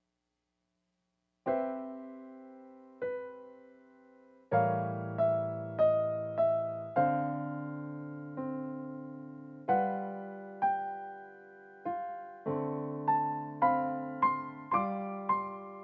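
Background solo piano music. It starts about a second and a half in with a couple of slow chords, then moves into a melody over held bass notes, the notes coming more quickly near the end.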